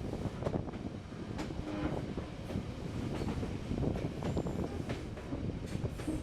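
Passenger train running on the track: a steady low rumble of wheels and carriages, with scattered clicks and knocks from the rails.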